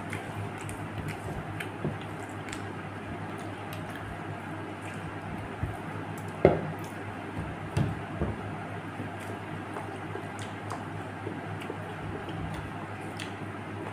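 Close-up eating sounds: wet chewing and fingers squishing rice and fish curry on a plate, with small clicks throughout. A single sharp knock about halfway through is the loudest sound.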